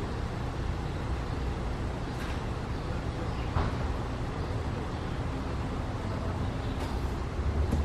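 Steady low rumble of distant road traffic, with a few faint short clicks over it.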